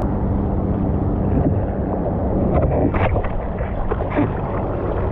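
Ocean surf and rushing water with wind buffeting the microphone, a steady low rumble.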